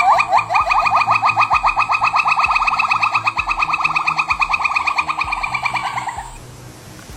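A monkey or ape calling: a run of short rising whoops that speed up into a fast trill, then fade out about six seconds in.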